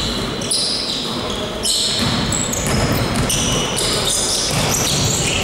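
Basketball being played on an indoor court: sneakers squeak again and again on the gym floor and the ball bounces, all echoing in the large hall.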